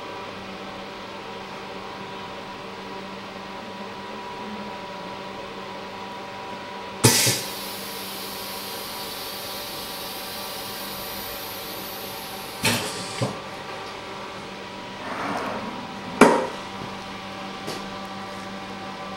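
OCA vacuum laminator running with a steady hum. About seven seconds in, a sudden loud burst of air hiss trails off over about five seconds as the press releases. A pair of clunks follows, then a loud knock about sixteen seconds in as the machine is opened.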